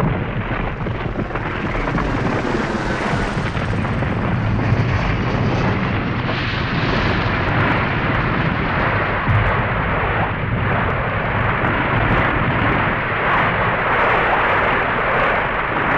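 Dense, steady wall of noise from an industrial noise-music piece, with a low hum underneath and a roar like massed engines.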